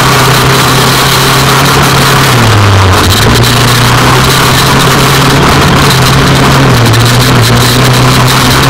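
Racing buggy's engine running hard at steady high revs, heard from on board. Its pitch dips briefly about two and a half seconds in and again near seven seconds, then comes back up.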